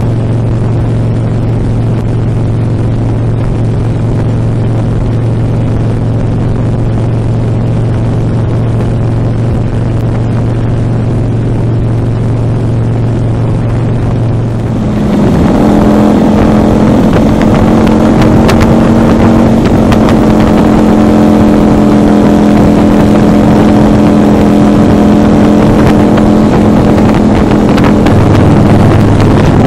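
Motorcycle engine running steadily at cruising speed with wind rushing over the bike. About halfway through the sound shifts abruptly to a louder, higher engine note with much more wind noise.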